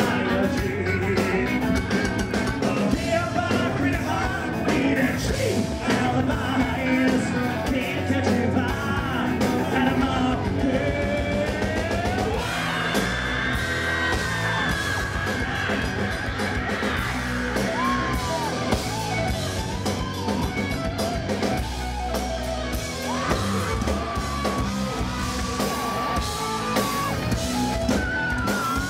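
Live hard rock band playing: electric guitar, bass and drums, with the singer's high sung lines and yells over them.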